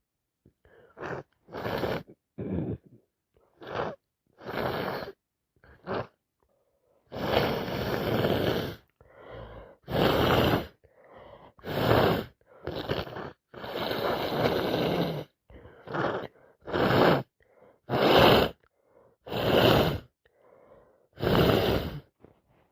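A woman with a heavy head cold sneezing over and over, one loud burst every second or two, with sharp gasping in-breaths between the sneezes.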